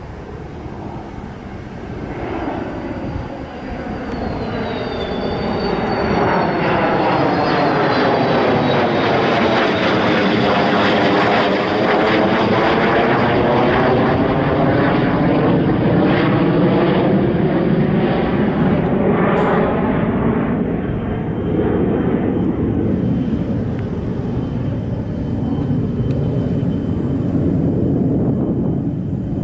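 Jet engine noise of a Dassault Rafale fighter's twin turbofans flying past, building over the first few seconds to a loud, steady sound. The sound sweeps down and back up in pitch as the jet passes overhead.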